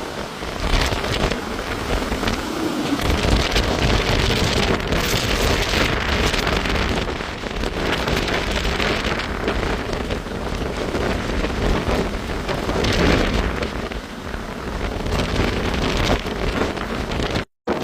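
Hurricane-force wind and heavy rain: a loud, steady rush of rain with gusting wind rumbling on the microphone, swelling and easing. The sound cuts out for a moment near the end.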